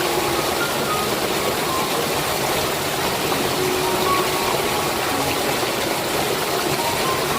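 Steady rushing noise of flowing water, with faint background music notes over it.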